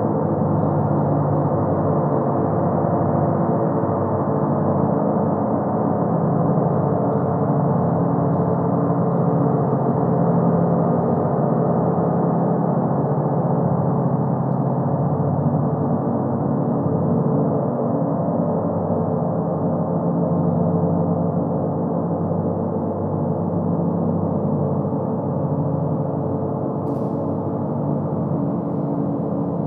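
Large gong on a stand sounding in a continuous, sustained wash of many overlapping tones, with no separate strikes standing out. It eases off slightly near the end.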